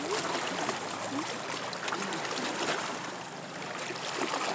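Water lapping and splashing against shore rocks around people standing in it, a steady close sloshing.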